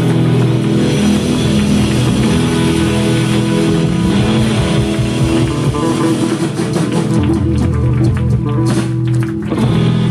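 Live rock band playing loud sustained chords on acoustic and electric guitars, bass guitar and drum kit, with a brief dip about nine and a half seconds in before the chord rings on.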